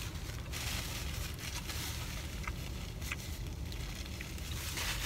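Steady low hum inside a parked car's cabin, with a paper napkin rustling and a few small clicks; the rustling is loudest near the end as the napkin is pressed to the mouth.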